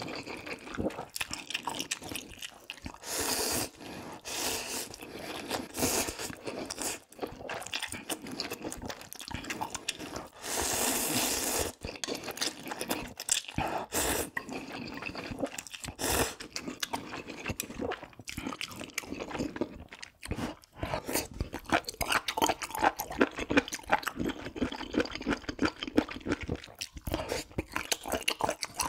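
Close-up eating sounds from a bowl of spicy ramyeon noodles: several noisy slurps, the longest lasting over a second about ten seconds in, with wet chewing and crunching bites in between.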